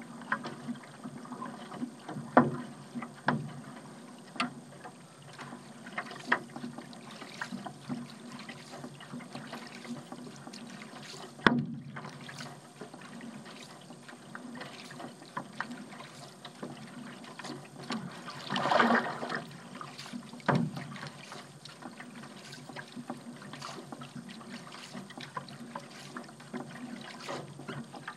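A paddle dipping and pulling through calm harbour water, with drips and small splashes between strokes. There is one sharp knock about eleven seconds in, and a louder rush of splashing water around nineteen seconds in.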